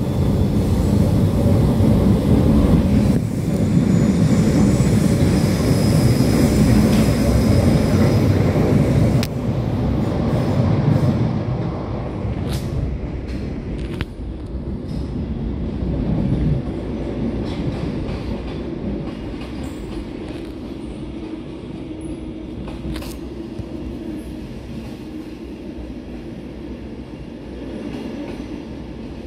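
SNCB classic electric multiple unit (AM Classique) running on the rails, a heavy rumble that is loudest for about the first ten seconds and then eases off. A thin high squeal comes in a few seconds in, and a few sharp clicks follow later.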